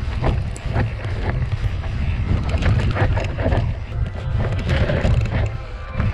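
Mountain bike ride down a rough natural trail: wind rumbles steadily on the camera microphone, while the bike rattles over the ground with many short knocks and clicks.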